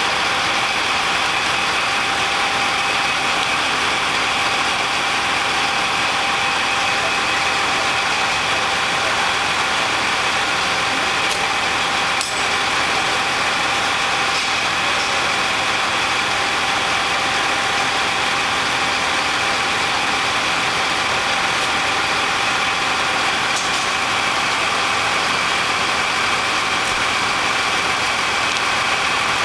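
Fire engine running at idle close by: a steady engine drone with a constant high whine over it.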